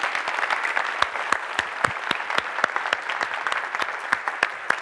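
Audience applauding, many hands clapping at once, thinning a little toward the end.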